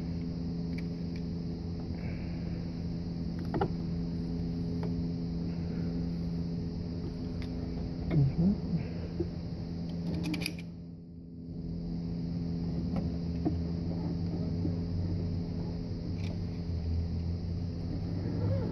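Light metallic clicks of pliers working the spring hose clamps on a plastic thermostat housing, with a few short squeaks about eight seconds in, over a steady background machine hum.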